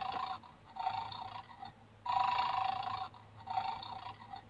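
Toy bulldog's recorded snoring sound, repeating in a steady cycle of louder and softer snores, each about a second long.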